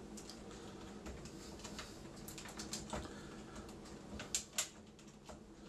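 Light clicking and rustling of wires and plastic parts being handled in a washer's control console, with two sharper plastic clicks a little after four seconds in.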